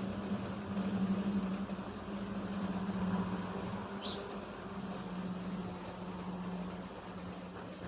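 Steady rain hiss under a steady low hum, with one brief high chirp about four seconds in.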